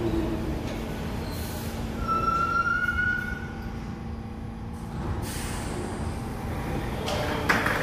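New York City subway train at a station platform: a steady hum, with a short rising whine about two seconds in. There are brief bursts of hiss, and a sharp knock near the end.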